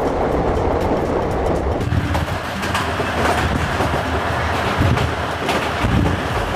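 Passenger train running, heard from inside the coach: a steady rumble with the clatter of wheels over the rails and scattered clicks.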